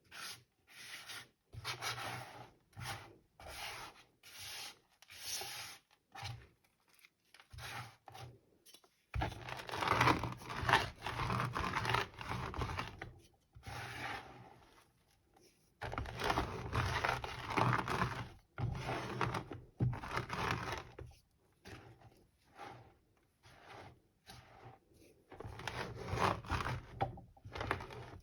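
Rolling pin crushing and rolling over small pebbles of gym chalk, a crunchy, gritty rubbing sound. It starts as short strokes about two a second, then turns into two long continuous rolls of several seconds each, then short strokes again near the end.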